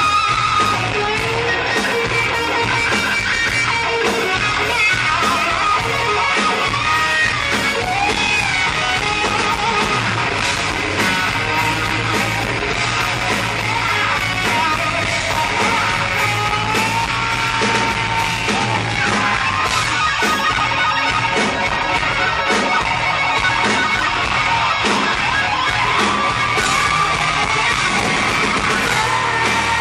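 Live rock band playing loud, led by an electric guitar solo with bending, gliding notes over drums and bass.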